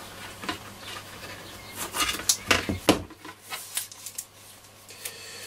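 Hands handling a cloth-covered radio panel while double-sided tape is put on it: rustling, with a cluster of sharp taps and knocks about two to three seconds in.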